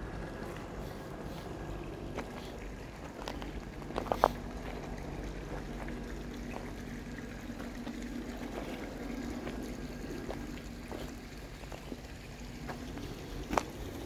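Shallow creek trickling over rocks, with footsteps on a dirt trail and two sharper crunches or snaps, one about four seconds in and one near the end.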